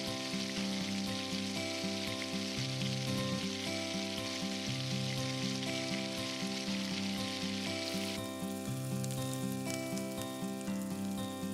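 Chicken sizzling as it fries in a small clay pot, a steady hiss with fine crackles that eases near the end, over background music.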